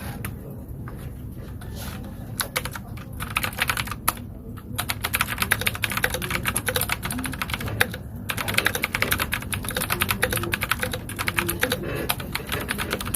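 Typing on a KOODO Gecko 60% mechanical keyboard with Outemu switches: scattered key clicks at first, then fast runs of clacking keystrokes broken by two short pauses.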